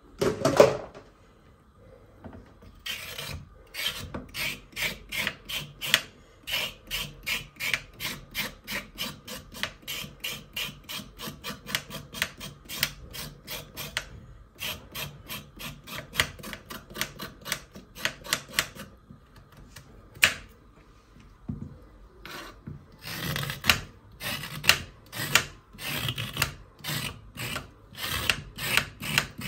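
Knife blade scraping the skin off a raw carrot on a wooden cutting board: a knock just after the start, then a long run of quick rasping strokes, about two or three a second, broken by a pause of a few seconds past the middle before the scraping starts again.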